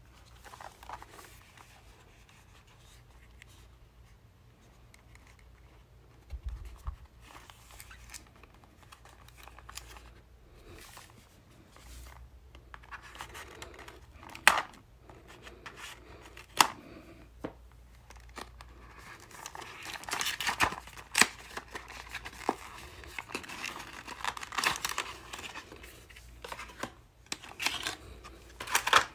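Scissors snipping into a cardboard retail box, with a few sharp clicks of the blades, then cardboard and plastic packaging rustling and tearing as the box is opened and the plastic battery case is taken out.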